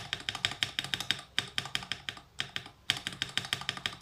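A long stabilized key fitted with a Marshmallow linear switch, pressed over and over in quick succession as a sound test. It makes a fast run of keyboard clacks with two short pauses.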